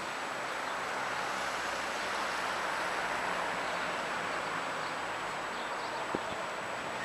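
Steady rushing wind ahead of a storm front, with a faint low hum beneath it and a small click about six seconds in.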